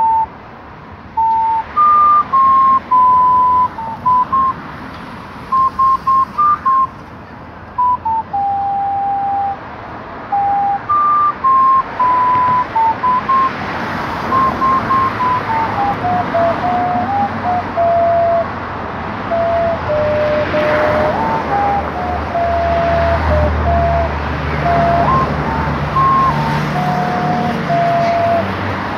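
A slow, wandering melody of single pure notes, each held a moment with short breaks between phrases, played on a small wind instrument held in cupped hands; the tune sits lower in the second half. A low traffic rumble rises in the second half as a vehicle passes.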